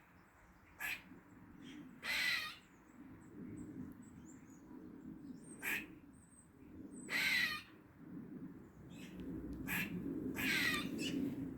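Squirrel calling: short sharp barks, with three longer falling calls about every four seconds, over a steady low background hum.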